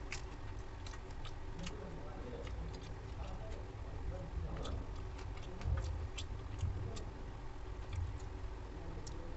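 Eating by hand from a stainless steel plate: fingers mixing and gathering rice against the metal, with irregular small clicks and ticks over a steady low hum.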